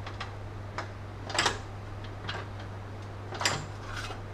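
Clicks and clunks of a manual sheet-metal pan brake (box and pan folder) as a fold is finished and the clamp bar worked: a few separate metal knocks, the loudest about a second and a half in and again about three and a half seconds in, over a steady low hum.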